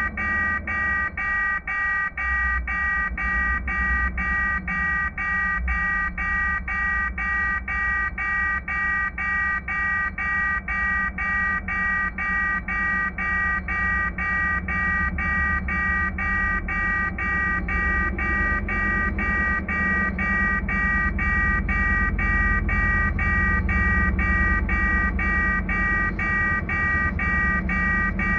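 Level-crossing warning bell ringing steadily, about two strikes a second. Underneath, the low rumble of an approaching CRRC CDD3a1 diesel locomotive builds in the second half.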